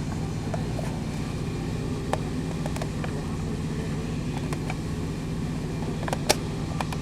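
Steady low machine hum, with scattered light clicks and taps of metal parts and tools, and one sharper click about six seconds in.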